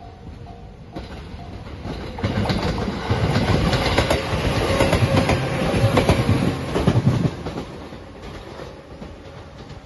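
The La Malle de Bois tourist train, a converted JR West 213-series electric multiple unit, passes close by. Its wheels clack rapidly over the rail joints, loudest from about two seconds in until it cuts off sharply near seven seconds, and a quieter train rumble follows. At the start a level-crossing warning bell is dinging about twice a second.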